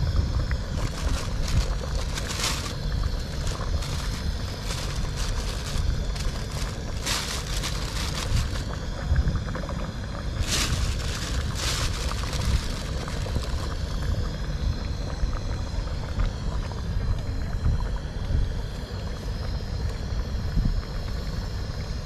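Steady low wind rumble on the microphone, with several short clinks and knocks as pieces of eggplant are dropped into a stainless steel cooking pot, mostly in the first half.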